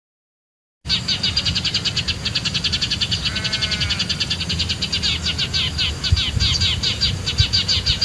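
Eurasian tree sparrows (burung gereja) chattering as a flock: a recorded lure call played from a speaker to draw sparrows to the trap perches. Fast, dense chirping starts suddenly about a second in, over a low rumble.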